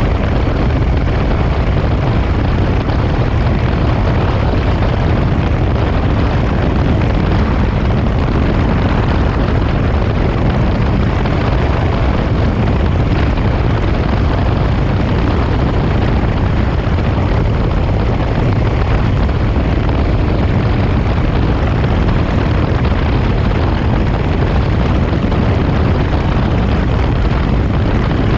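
1967 Triumph T100R Daytona's 500cc parallel-twin engine running at a steady cruise on the road, its exhaust note mixed with wind and road noise.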